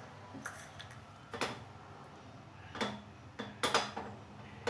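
Scattered sharp clicks and light ticks, about six of them, roughly a second apart, from a small tadka pan of ghee heating on a gas burner.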